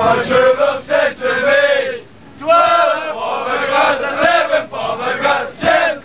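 A crowd of Irish football supporters chanting loudly in unison, men's voices, with a brief break about two seconds in before the chant picks up again.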